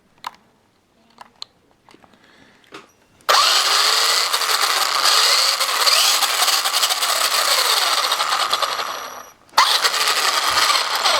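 A few light taps, then the Traxxas Stampede VXL's electric motor and drivetrain run up to a loud whir with the pitch rising and falling as it is throttled, cut off briefly about nine seconds in and run again.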